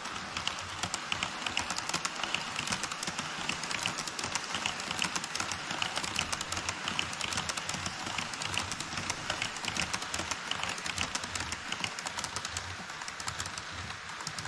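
HO scale model trains rolling across a truss bridge on KATO Unitrack: a container freight train of Koki 104 wagons, then an E5 series Shinkansen model. Their metal wheels click rapidly over the rail joints above a steady rolling rumble, and the clicking thins out near the end as the last cars leave the bridge.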